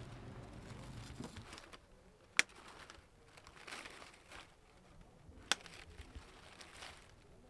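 Soft rustling and crinkling of plastic artificial flower stems and leaves being handled and set into a vase. Two sharp clicks stand out, about two and a half seconds in and again three seconds later.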